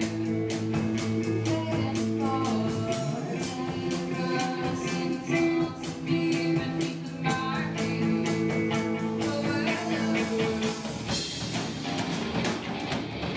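Young rock band playing live: a female vocalist singing over electric guitars and a drum kit keeping a steady beat.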